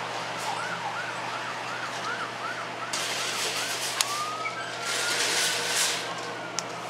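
Emergency-vehicle siren sweeping quickly up and down about three times a second, then switching to one slow rising and falling wail about four seconds in. A sharp click comes at the switch, and a steady low hum and rushes of noise run underneath.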